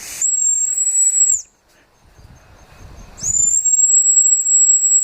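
Dog whistle blown in two long blasts: a high, steady whistle that swoops up at its start and lasts about a second and a half, then after a pause a second, longer blast starting about three seconds in.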